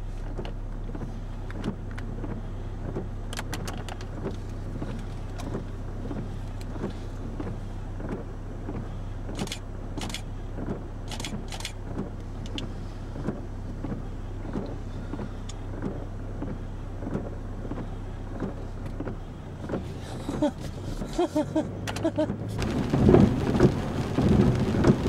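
Inside a car during a thunderstorm: a steady low hum from the vehicle with faint, scattered ticks. About twenty seconds in the hum stops, and heavy rain on the car grows loud near the end.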